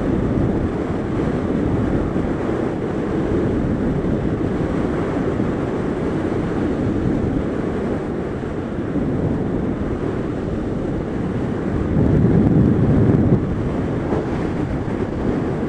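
Wind rush buffeting the camera microphone of a Kawasaki ZZR1400 sport bike at high speed, with engine and tyre noise buried in it. It swells louder for a second or so about twelve seconds in.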